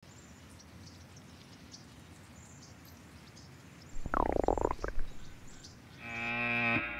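A loud stomach growl about four seconds in, its pitch dipping and then rising again: the sound of hunger. Before it there is only faint background with a few high chirps. From about six seconds, distorted electric guitar music fades in.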